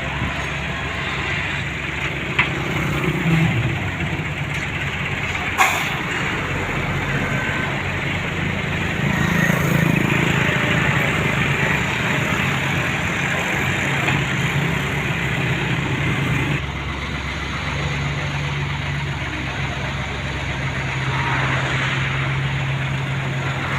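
Diesel engines of asphalt paving machinery running steadily, with a low engine hum and a couple of short sharp knocks a few seconds in.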